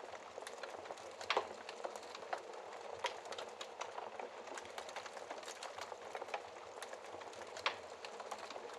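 Wood fire crackling in a fireplace: a steady soft hiss with frequent small pops and snaps, and two louder pops, about a second and a half in and near the end.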